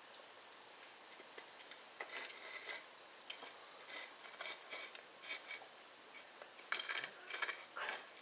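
Airedale terrier puppy gnawing on a bone: faint, irregular clicks and scrapes of teeth on bone, coming in short spells with pauses between, busiest near the end.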